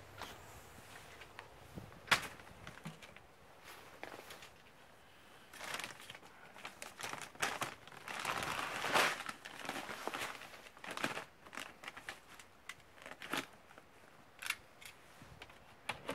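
Crinkly rustling with scattered clicks and light knocks as a person handles red plastic buckets; the rustling is loudest around the middle, with one sharp click early and a run of separate clicks near the end.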